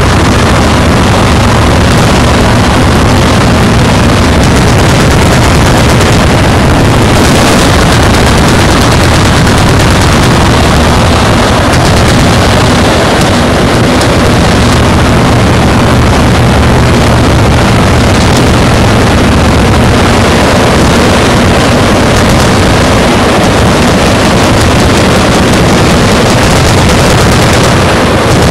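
Massed automatic gunfire from many machine guns firing at once, an unbroken rattle of overlapping shots that overloads the microphone.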